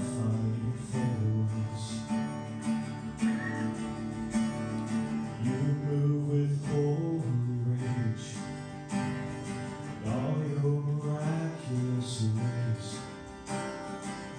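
Acoustic guitar strummed in steady chords that change every second or so, with a man's voice singing over it at times.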